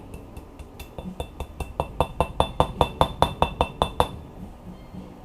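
A hammer tapping quickly on metal transmission parts: a run of about twenty light strikes, about five a second, growing louder, each with a ringing metallic clink, stopping about four seconds in.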